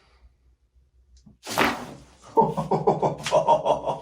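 A man lets out a short, forceful breath about a second and a half in, then a long, rapidly pulsing vocal sound, his reaction to a chiropractic adjustment.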